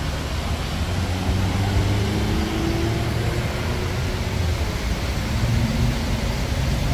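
Busy street traffic: a steady rumble of car engines and tyres, with the engine hum of passing vehicles coming and going.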